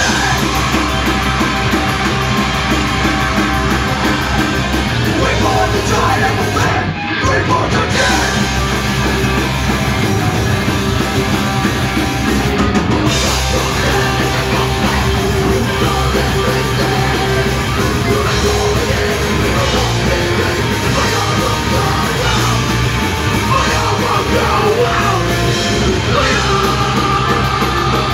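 Punk band playing live and loud: distorted electric guitar, bass guitar and drum kit, a fast, dense punk rock song.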